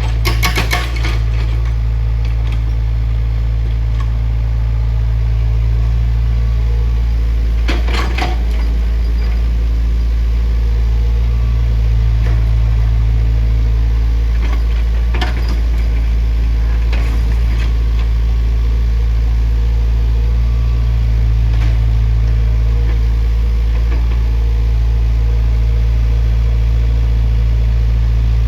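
Heavy machine's engine running steadily with a deep rumble, with a few sharp metallic clanks: one near the start and others about a third and half of the way through.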